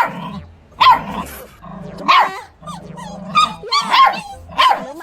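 Chinese native hunting-dog puppy (Guangxi tuliegou) barking repeatedly: about six sharp, high barks in quick succession.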